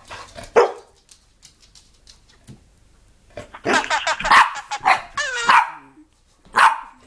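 Boston terrier barking and making wavering, talking-like yowls: a short bark about half a second in, a run of drawn-out yowling barks from about three and a half seconds in, and one more bark near the end.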